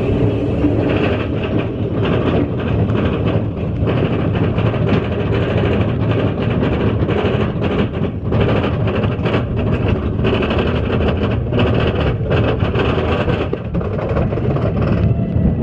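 Big Thunder Mountain mine-train roller coaster running fast along its track, a steady rumble with rapid clattering from the wheels on the rails.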